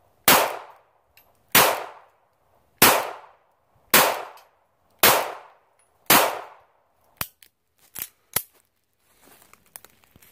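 Six rapid pistol shots, about one every 1.2 seconds, from a Ruger LCP .380 firing Freedom Munitions 100-grain remanufactured flat-point rounds, cycling without a stoppage. A few quieter sharp clicks follow as the pistol is handled.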